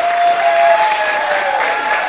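Audience applauding steadily, with long held high-pitched cheering tones over the clapping that slide slightly in pitch.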